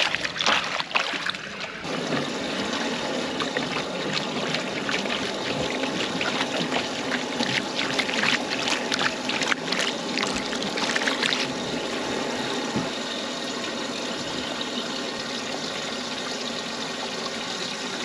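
Water splashing and sloshing in a stock water trough as a hand sweeps and scrubs it out, with many short splashes through the first half, then a steady trickle of water for the last several seconds as the trough is emptied.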